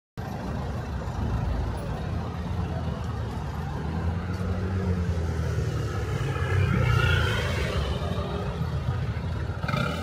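City street traffic: vehicle engines running with a steady low hum, cutting in suddenly just after the start and swelling a little about seven seconds in.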